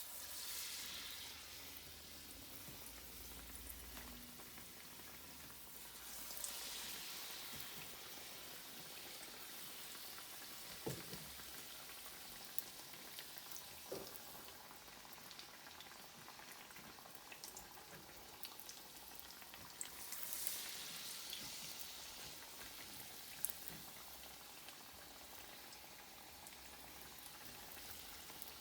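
Battered potato pieces deep-frying in hot oil in a kadai: a steady sizzle that swells briefly at the start and again about 6 and 20 seconds in, with a few sharp clicks.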